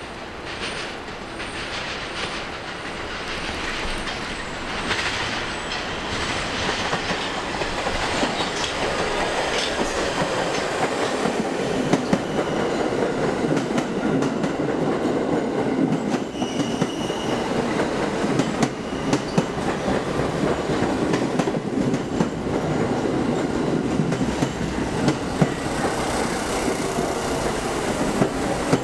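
New York City subway train running on the rails, getting louder over the first several seconds, then a steady rumble with sharp wheel clacks over rail joints.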